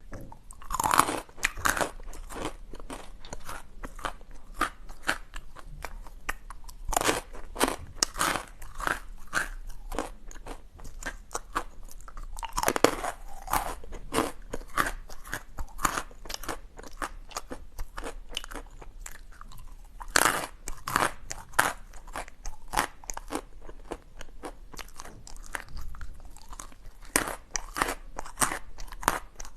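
Close-up crunching of milk ice being bitten and chewed. There are four louder bites, about 1, 7, 13 and 20 seconds in, and steady crackling chewing in between.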